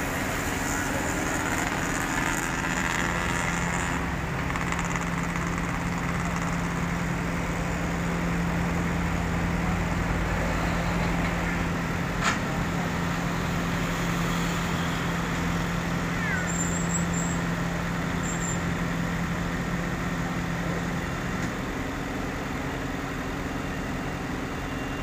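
A self-loader truck's engine running under hydraulic load while its tilting bed, loaded with an asphalt paver, is drawn back into travelling position, with a steady hum that sets in a few seconds in and stops a few seconds before the end. A single sharp knock comes about halfway through.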